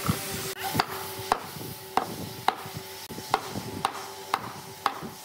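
Mallet striking a heavy reclaimed wooden railroad timber, knocking it into place: about eight sharp knocks, roughly two a second.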